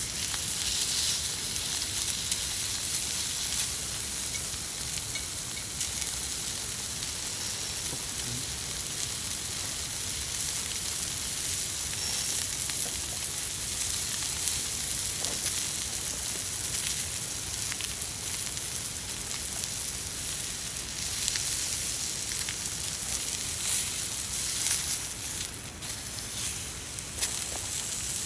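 Meat sizzling on a grill over a wood fire: a steady hiss with scattered small crackles.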